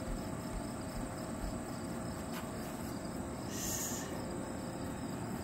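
Steady outdoor summer ambience with insects trilling continuously, and a brief high hiss about three and a half seconds in.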